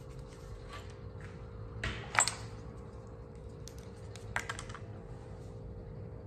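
Light clicks and taps of hands working with material on a workbench, with a short clatter of several clicks about two seconds in and another just past four seconds, over a faint steady hum.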